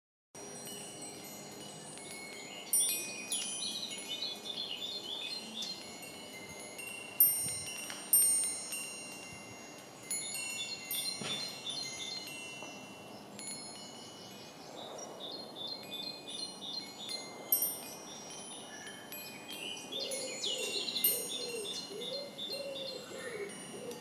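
Nature's Melody Walnut Gem Tinkler wind chime, its six silver alloy tubes struck by a wooden striker as it sways in the breeze. Clear high notes ring on in irregular clusters, with a few louder strikes.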